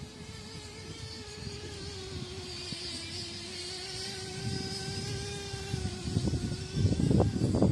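Small glow-fuel nitro engine of an FTX Carnage RC off-road truck, heard from a distance as a steady high-pitched buzz that wavers slightly in pitch. Near the end, louder low rumbling noise comes in over it.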